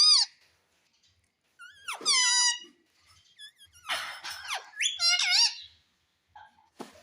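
Rose-ringed (Indian ringneck) parakeet making a few shrill, squeaky calls with sharp pitch slides, one of them a rough screech, separated by short pauses.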